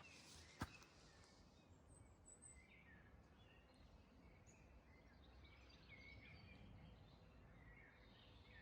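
Near silence, with faint, scattered bird chirps and a single sharp click about half a second in.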